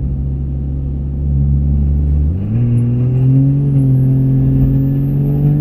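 Pickup truck engine heard from inside the cab, running steadily. About two seconds in, its note jumps up in pitch and stays high as the truck accelerates.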